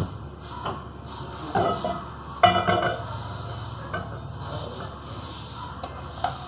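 Cookware knocking on a gas hob, with a loud metal clank about two and a half seconds in as a saucepan is set on the burner grate, and a few lighter knocks and clinks around it.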